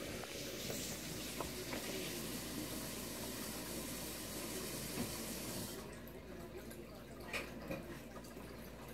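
Steady trickle of water circulating in an EcoQube desktop aquarium, easing off about six seconds in, with a few faint clicks.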